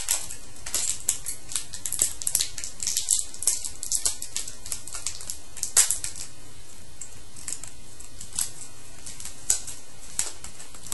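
A foil trading-card pack being torn open and the cards inside handled: a quick run of crinkles and clicks for about the first six seconds, then a few scattered clicks.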